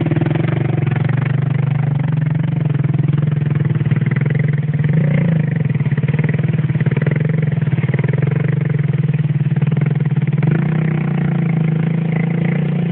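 Small trail motorcycle engine running steadily close by, holding a near-even low note with small rises in engine speed.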